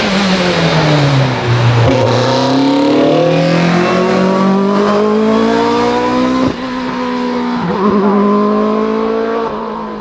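Audi A4 STW Quattro race car engine at full throttle. The note falls over the first two seconds, then climbs hard, broken by quick gear changes about six and a half and eight seconds in, and eases off near the end.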